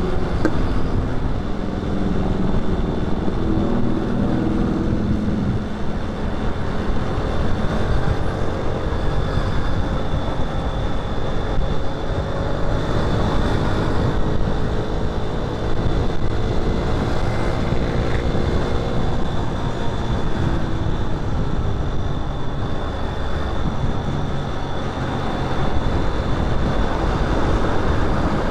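Riding a manual-clutch motorcycle in traffic: wind rushes steadily over the microphone, with the engine note rising and falling gently under it.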